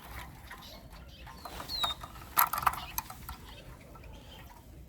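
A Eurasian siskin gives one short, high call that slides down in pitch about two seconds in, followed by a few sharp clicks.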